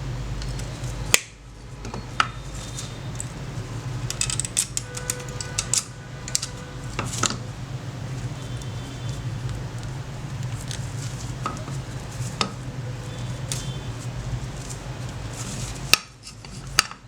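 Metal tools and steel pruner parts clinking and scraping against each other on a work surface, scattered sharp clicks over a steady low hum.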